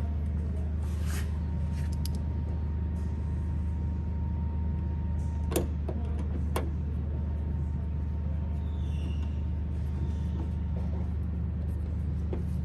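A steady low hum with a few sharp light clicks and taps as screws are fitted and turned into the plastic grommets of a bonnet guard, two of them about a second apart near the middle.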